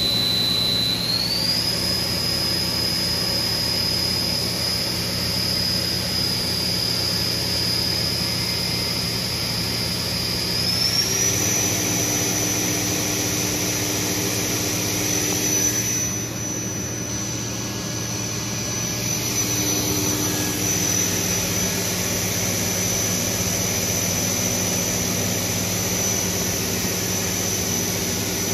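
Johnford DMC-1500H vertical machining center's spindle running: a high whine that steps up in pitch twice, about a second in and again about ten seconds later, over a steady low machine hum.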